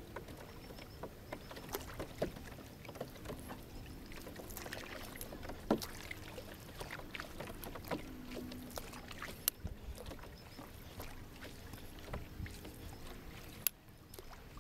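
Canoe paddling: a wooden paddle dipping and pulling through lake water, with small splashes, drips off the blade and occasional light knocks against the hull.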